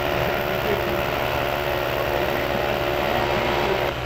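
Bosch GBH18V-26K 18-volt cordless rotary hammer hammer-drilling into a concrete wall: a steady, rapid hammering that dips briefly near the end.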